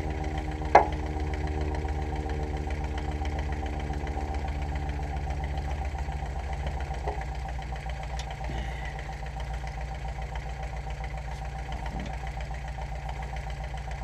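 An engine idling steadily nearby, with a single sharp click about a second in. A higher hum over the idle fades out about halfway through.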